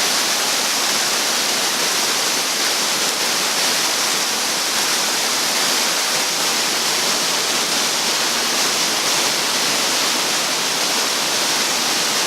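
Mingo Falls waterfall rushing, close by: a steady, even, hissing roar of falling water that holds at one level throughout.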